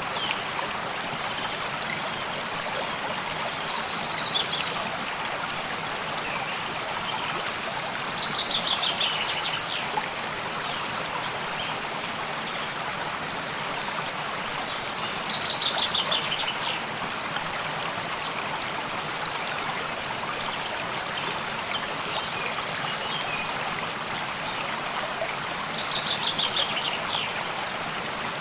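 A stream of running water flowing steadily. Over it a songbird sings a short, quick descending phrase four times, several seconds apart.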